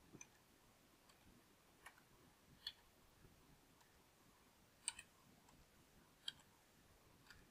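Computer keyboard keystrokes: single short clicks a second or more apart over near silence, as letters are typed one per cell with the Tab key pressed between them.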